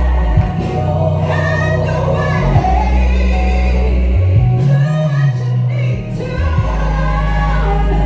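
A woman singing a gospel song into a microphone, amplified, over an accompaniment of deep, held bass notes that shift pitch every second or two.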